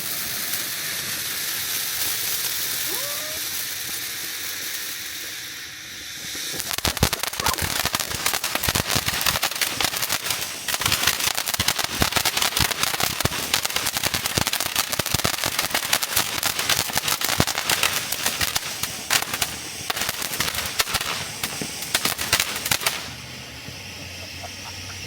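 Consumer firework going off: a steady hiss for about six seconds, then a dense, rapid crackling for about sixteen seconds that cuts off suddenly near the end.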